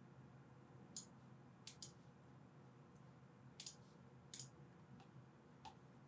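A handful of faint, sharp computer mouse clicks over near-silent room tone.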